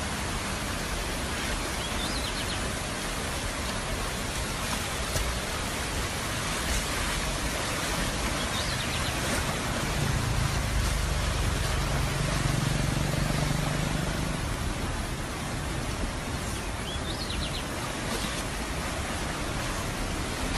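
Steady rushing of a brown, flood-swollen river in spate, an even hiss of water with a low rumble that swells a little in the middle.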